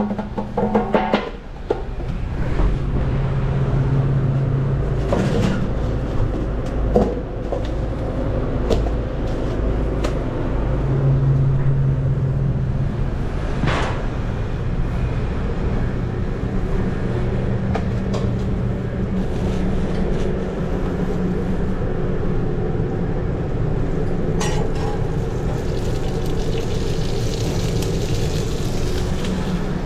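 Commercial kitchen ambience: a steady hum of exhaust hood and kitchen equipment, with scattered knocks and clatter of utensils and cookware.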